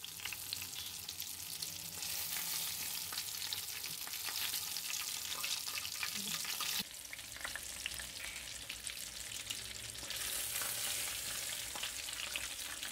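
Besan-coated fish pieces sizzling in hot oil in a wok: a steady crackling sizzle that drops suddenly about seven seconds in and then picks up again.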